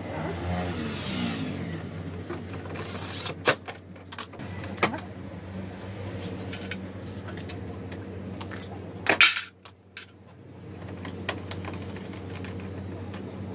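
Plastic body panels of a Honda PCX 125 scooter being handled and knocked into place, giving a few sharp clicks and knocks, the loudest about nine seconds in, over a steady low hum.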